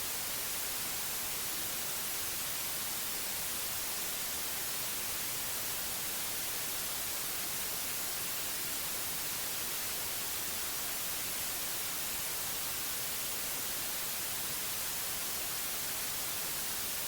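Steady static hiss, brightest in the treble, with no tone, voice or change in it.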